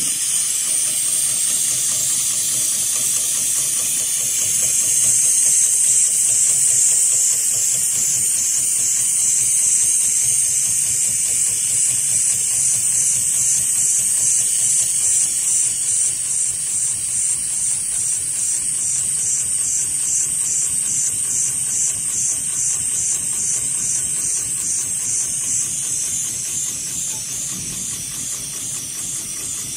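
Heavy-duty automatic bar-tacking sewing machine stitching a zigzag tack into a thick climbing-style rope, under a loud steady hiss of compressed air from the needle-cooling nozzle that starts abruptly. A fine regular pulsing runs through the hiss.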